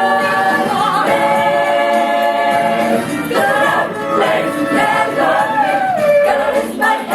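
A choir singing a gospel praise song, holding long chords for about three seconds, then moving into shorter sung phrases.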